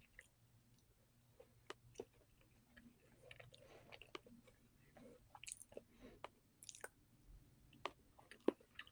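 Faint chewing of soft Oreo cake, with scattered small clicks and mouth noises.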